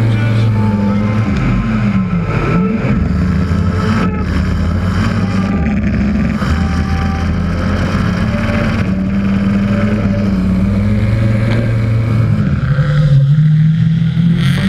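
Drift car's engine running at high revs through a tandem drift, heard from a camera on its roof. The revs dip and climb again about two seconds in and change again a couple of times as the throttle is worked.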